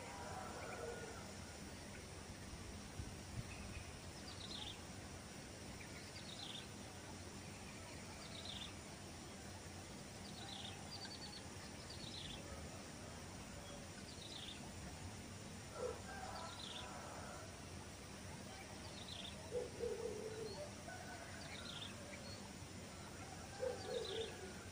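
A bird repeats a short, high, falling note about every two seconds, and a few louder, lower calls come in three times. Behind them is a steady hiss of rural background noise with a faint low hum.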